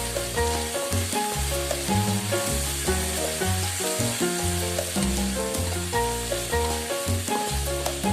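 Food frying in a pan, a steady high sizzle, heard under background music with a bass line and melody. This is most likely tofu being stir-fried for spicy soy-sauce tofu.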